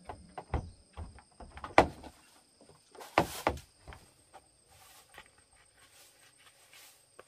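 Scattered knocks and thuds, the sharpest about two seconds in, and a short rustle about three seconds in, over a steady high buzz of insects.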